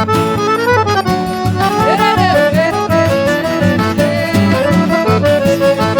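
Accordion playing an instrumental forró break, melody over a band with bass and a steady beat.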